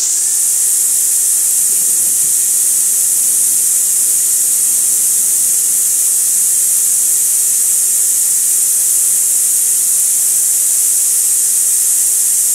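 Gas string trimmer (weed eater) running at full throttle, its engine revving up over the first half-second and then holding a steady high speed under a loud, even hiss.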